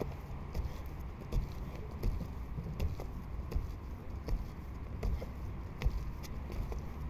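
Trampoline being bounced on: the springs clink and the mat knocks with each bounce, about once every three quarters of a second, over a low rumble of wind on the microphone.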